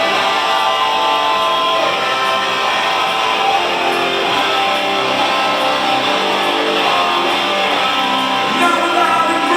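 A rock band's electric guitars playing a song intro at a live show, heard loud through the venue's PA on a small camcorder's microphone, with sharp hits coming in near the end.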